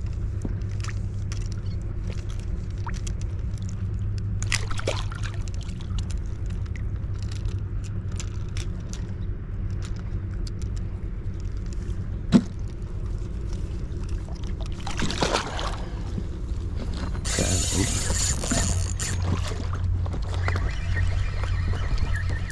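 Steady low wind rumble with water sloshing against an inflatable boat, scattered small clicks and one sharp knock about halfway through. A brief hissing rush comes about three-quarters through, and near the end a spinning reel whirs as its handle is cranked.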